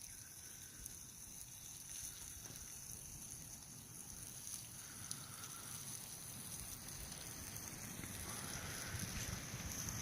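Wind gusting through the forest and rumbling on the microphone, growing slightly stronger toward the end.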